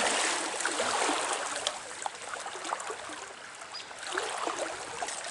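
Trout stream water flowing, a steady rushing noise that is louder in the first second or so.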